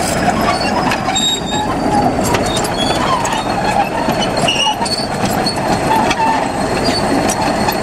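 Crawler bulldozer on the move, its diesel engine running while the steel tracks keep up a steady clatter with high squeaks.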